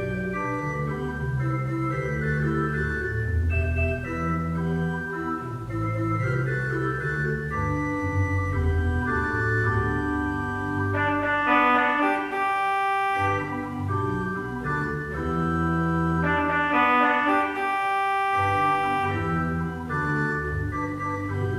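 Organ music: sustained chords moving from one to the next, with brighter high notes joining in twice in the middle.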